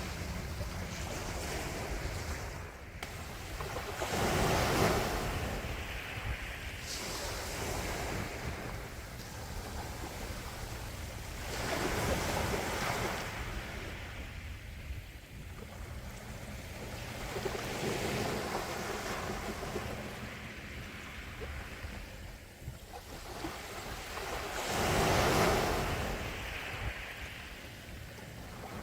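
Calm sea waves washing in, four swells of surf each rising and falling away, about one every six to seven seconds, over a steady low rumble.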